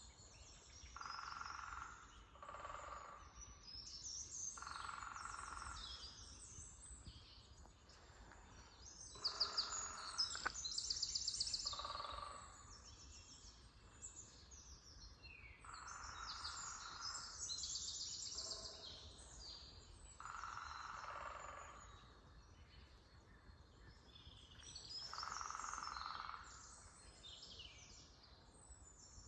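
Several songbirds in an early-spring forest, singing and chirping with quick high trills that overlap one another. A lower, rougher sound about a second long recurs every few seconds beneath the songs.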